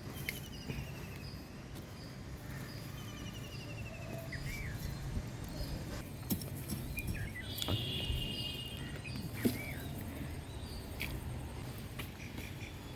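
Outdoor ambience with birds chirping in short trills and chirp series, over a steady low background rumble, with a few sharp knocks.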